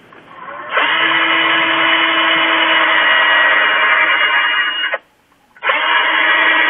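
Electric drill running at speed, boring holes in the plastic paddle of a guitar effects pedal's foot switch. It spins up about half a second in, runs steadily for about four seconds, stops suddenly, then starts again a moment later.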